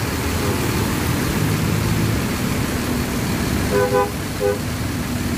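A large bus engine idling amid passing traffic, with a vehicle horn giving three short toots about four seconds in, two quick ones and a third half a second later.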